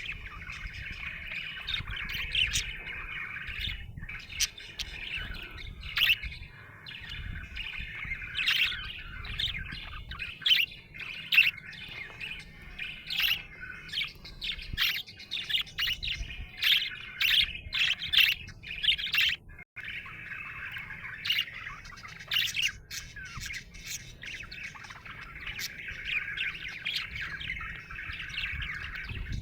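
Budgerigar chattering in a continuous warble, broken by many short, sharp chirps and squawks.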